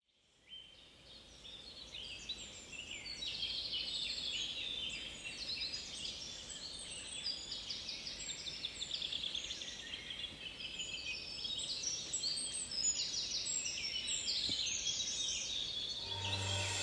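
A chorus of several songbirds singing at once, with many overlapping chirps and trills, fading in over the first couple of seconds. A low steady hum comes in near the end.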